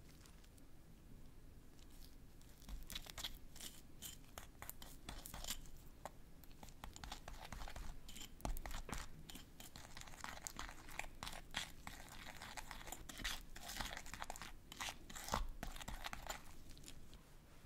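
A small utensil stirring thick royal icing and red food colouring in a ceramic bowl: quick sticky scrapes and ticks against the bowl. It starts about two and a half seconds in and stops shortly before the end.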